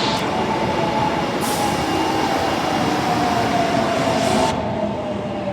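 Osaka Metro Tanimachi Line 22-series subway train running, with a tone that falls slowly in pitch over its running noise. The high hiss cuts off suddenly near the end.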